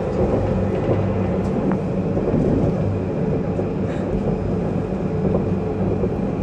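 T2 tram running steadily, heard from inside the car: a continuous rumble of wheels on rail with a low, steady motor hum.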